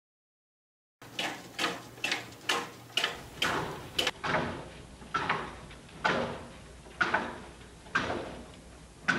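LEGO Technic Strandbeest-linkage quadruped walking passively down a sloped wooden board, its plastic feet knocking on the wood step after step, about two to three knocks a second. About four seconds in the knocks come slower and further apart as the footage drops to half speed.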